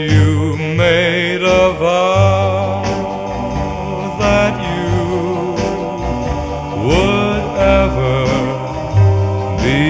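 Background music with a singer holding long, wavering notes and sliding up into others, over bass and a beat.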